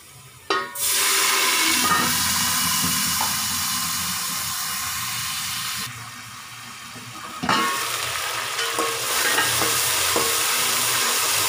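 Water poured into hot oil and golden-brown fried onions in an aluminium pot, setting off a loud sizzle. About six seconds in the sizzle turns muffled under the pot's lid; it comes back loud when the lid is lifted, with a metal spatula clicking against the pot as the onions are stirred.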